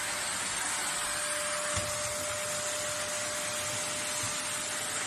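Vytronix CYL01 bagless cylinder vacuum cleaner with an 800 W motor running steadily: an even rushing of air with a steady whine through it.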